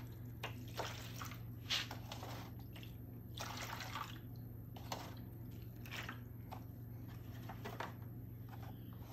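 Liquid fabric dye sloshing and splashing in a foil tray as a gloved hand stirs and works it, with irregular wet squelches and drips. A steady low hum runs underneath.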